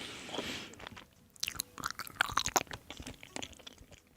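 A person chewing food close to the microphone: a short hiss at the start, then a run of quick sharp mouth clicks and crunches from about one and a half seconds in.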